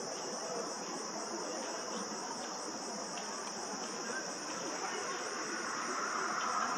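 A steady, high-pitched drone of insects over a broad background rush that grows a little louder near the end.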